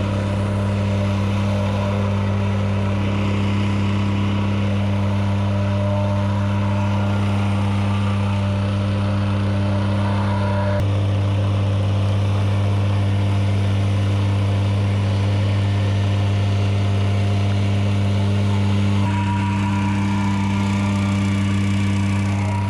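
Plate compactor's small pull-start engine running steadily under load as it vibrates gravel into the road, its pitch shifting slightly about eleven seconds in.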